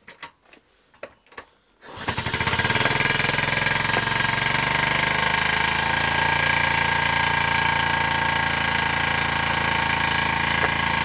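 A few light clicks, then about two seconds in the 1978 Honda Z50A's small single-cylinder four-stroke engine fires and settles into a steady, rapidly pulsing idle.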